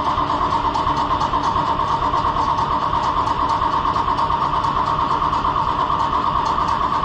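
Starter motor cranking a cold diesel tractor engine with a steady whine and a fast, even pulse from the compression strokes. The engine does not fire; the block heater was not plugged in.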